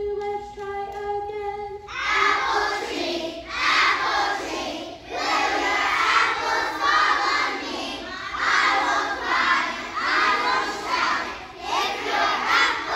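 A single steady held note for about the first two seconds, then a group of young children singing together in loud, uneven phrases.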